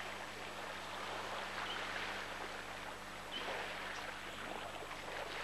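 Beach ambience: surf washing ashore in slow swells of noise about every two seconds, with a few faint short high chirps.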